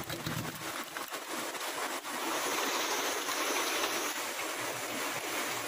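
Heavy rain, a steady hiss of water pouring off a roof sheet.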